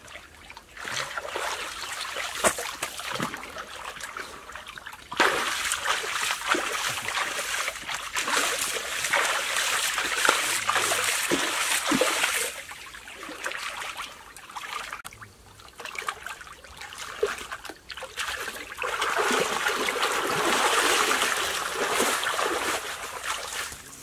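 Water splashing and sloshing in a small in-ground pool as people move and splash about in it, in two louder bouts of several seconds each, the second near the end.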